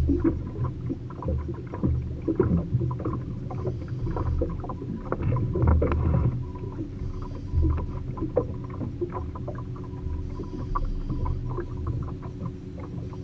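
Small fishing boat on open lake water: water lapping and slapping against the hull with many short knocks, over a low rumble and a faint steady hum.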